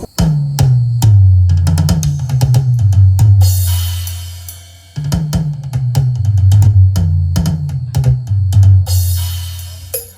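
Music with a drum beat and a deep bass line of held and sliding notes. The phrase fades away about halfway through and then starts again.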